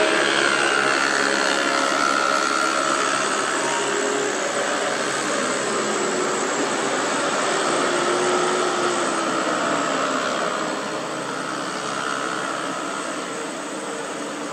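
Diesel engine of a loaded truck running on a hill road: a steady, dense drone with faint wavering tones, growing somewhat quieter after about ten seconds.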